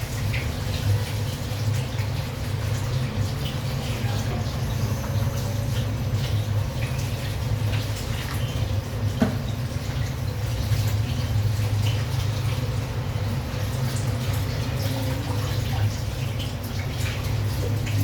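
Water running from a kitchen tap, over a steady low hum, with occasional light clicks and knocks.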